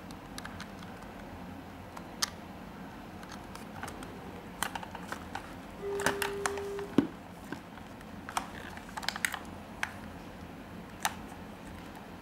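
Scattered clicks and taps of plastic over-ear headphones and their cable being handled and turned in the hands. About six seconds in, a steady beep lasts about a second, followed at once by the sharpest click.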